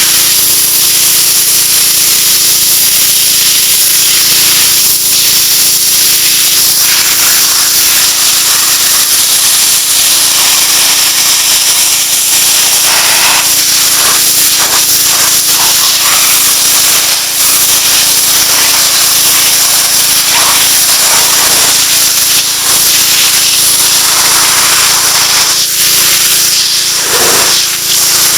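2,200 psi gasoline pressure washer running steadily, its water jet spraying against a fish to blast the scales off, with the hiss of the spray shifting as the jet moves over the fish.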